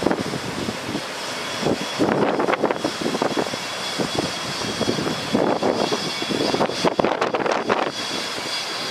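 Wind gusting on the microphone over the Cummins 6.7L ISB diesel engine of a bucket truck running with the PTO engaged, driving the hydraulics that raise the Altec boom, with a faint steady high whine.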